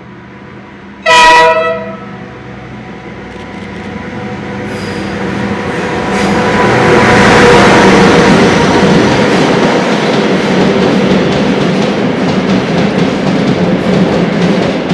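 A short, loud horn blast about a second in from a KiwiRail DL-class diesel locomotive, then the train drawing near and passing, its engine and wheels growing louder over several seconds and staying loud.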